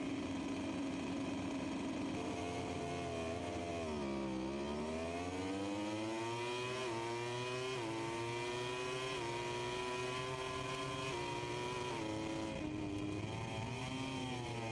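MotoGP race bike engine accelerating off the start: the revs dip about four seconds in, then climb hard through the gears with a short drop at each upshift. Near the end the revs fall in steps as the rider downshifts and brakes for the first corner.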